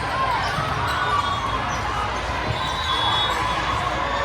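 A ball bouncing on a hard gym floor amid the murmur of a crowd and players' voices.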